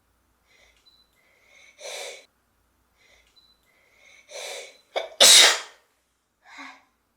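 A woman sneezing: two breathy build-up breaths a couple of seconds apart lead into one loud, sharp sneeze about five seconds in, followed by a short soft breath.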